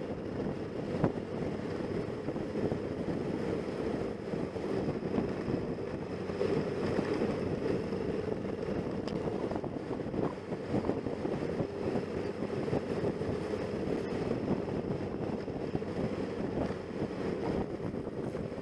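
Motorcycle engine running steadily while riding along, with wind buffeting the onboard camera's microphone.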